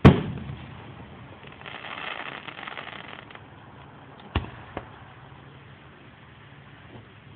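Fireworks going off: a loud boom right at the start with a rumbling tail, a stretch of crackling about a second and a half in, then a sharp bang a little after four seconds and a smaller pop just after it.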